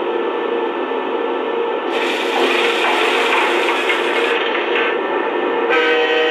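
Lionel Amtrak Acela O-scale locomotive's electronic sound system giving a steady mechanical whirring and rubbing as the model's motorized pantographs fold down. Near the end a steady horn starts.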